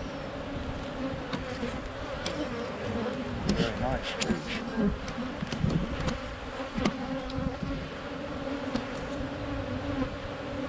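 Honeybees buzzing steadily around an opened hive while frames are worked, with a few sharp clicks of wooden hive frames around four and seven seconds in.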